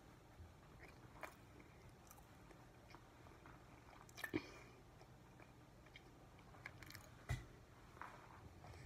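Faint chewing and small mouth sounds of a child eating soft bread, with a few short clicks; the strongest come about four and seven seconds in.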